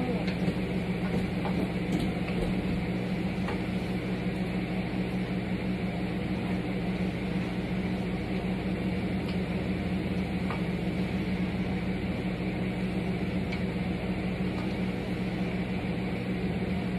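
Vegetables sizzling as they are stir-fried in a pan, stirred with a wooden spatula that clicks against the pan now and then, over a steady low hum.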